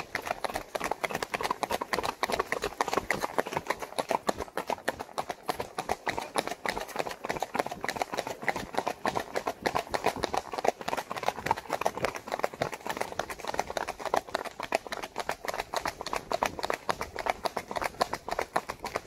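Tennessee Walking Horse mare's hoofbeats in a quick, even, unbroken rhythm as she is ridden at a gait.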